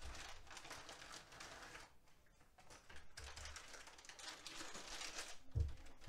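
Plastic bags of Dolch keycap sets crinkling as they are handled, the loose keycaps inside clicking against each other, with a lull about two seconds in and a soft thump near the end.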